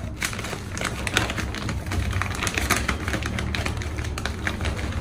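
Stiff sego gele fabric crinkling and rustling in irregular crisp clicks as hands press and arrange its pleats.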